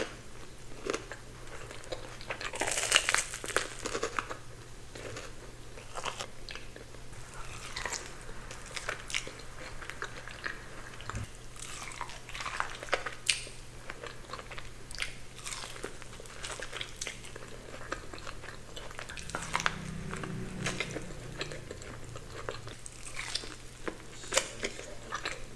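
Close-miked biting and chewing of a crispy Korean corn dog: repeated crunches of the fried batter crust at an irregular pace, with wetter chewing between bites.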